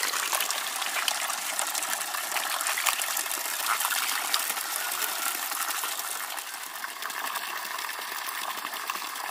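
Water rushing and splashing steadily, a continuous hiss-like rush flecked with small splashy ticks that eases slightly after about six seconds.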